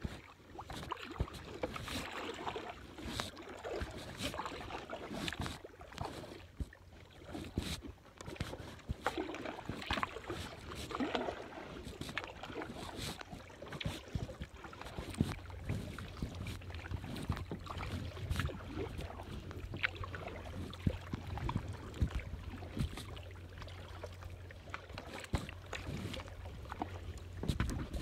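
Kayak paddling on calm water: the paddle blades dip and splash, with irregular drips and small knocks. From about halfway a low steady rumble runs underneath.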